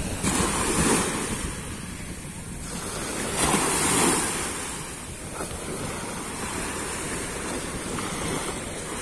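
Small sea waves breaking and washing up a sandy shore, with two louder surges: one about a second in and a bigger one around four seconds in.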